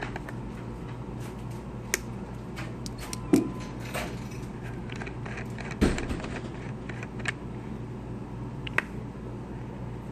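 Scattered sharp clicks and taps of small hand tools and coil wire on a rebuildable dripping atomizer's metal deck, over a steady low hum. The loudest clicks come about a third of the way in and just over halfway through.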